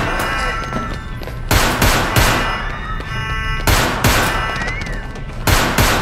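Gunshots fired in quick bursts of two or three, about every two seconds, each shot echoing.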